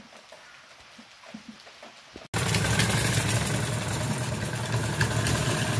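Hand-operated sewing machine running at a steady pace, a fast even clatter over a low hum. It cuts in suddenly about two seconds in, after a stretch of faint scattered clicks.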